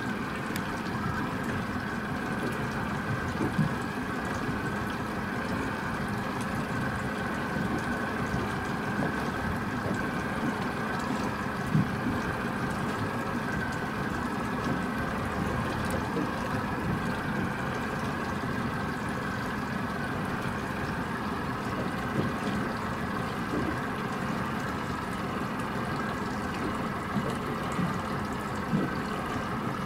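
Car ferry's diesel engines running across the water: a steady low drone with a faint hum over it, and a few short knocks.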